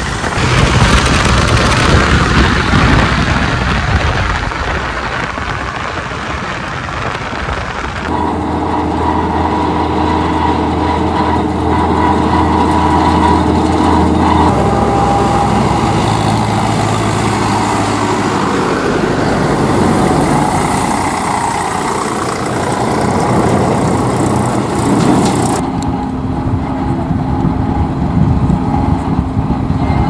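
Diesel tractor engines running steadily as they pull loaded trolleys, heard in a string of separate clips. The engine note changes abruptly about a quarter of the way in, near the middle, and again near the end.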